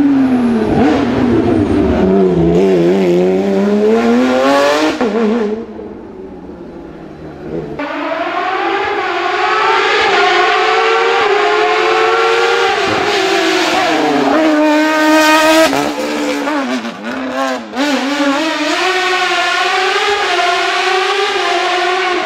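Racing car engines accelerating hard, the pitch climbing and then dropping with each gear change as the cars pass. The sound dips for a couple of seconds about six seconds in, then another car comes through at high revs.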